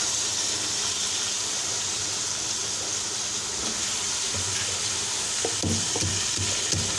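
Washed raw chicken pieces sizzling in a hot steel karahi, a steady high hiss, while a slotted spoon stirs them. In the second half, a series of short soft knocks.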